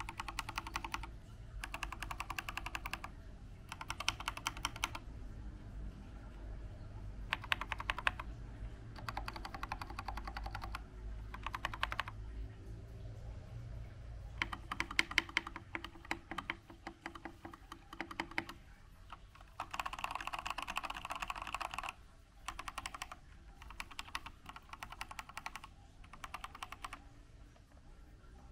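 Typing on an Akko 3098B mechanical keyboard fitted with Akko Jelly Pink linear switches on a foamed stainless steel plate. It comes as bursts of rapid keystrokes, each one to four seconds long, broken by short pauses.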